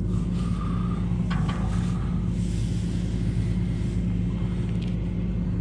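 Heavy truck's diesel engine idling steadily, with an even low rumble.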